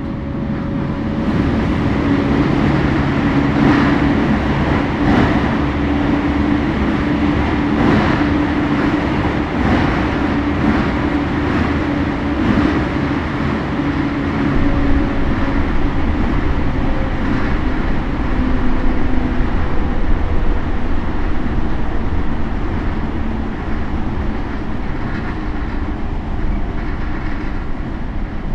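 Toei 10-300 series electric train running at speed, heard on board: steady wheel and rail noise with clicks from rail joints, and a steady tone from its Mitsubishi IGBT inverter traction drive that fades out past the middle.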